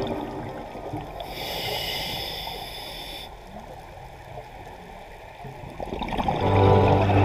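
Diver breathing through a scuba regulator underwater: a hissing inhale about a second in, lasting about two seconds, then the low rumble of exhaled bubbles. Music comes in near the end.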